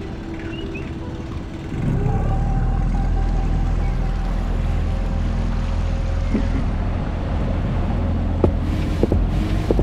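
Small outboard motor on an inflatable dinghy, running under way. About two seconds in it is throttled up and then runs steadily louder, with water rushing past the hull.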